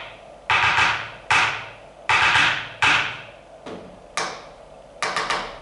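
A ballpoint pen tapped against a hard surface to count out a song's beat, sharp taps about every 0.8 seconds, slightly uneven, with a quick cluster of taps about five seconds in.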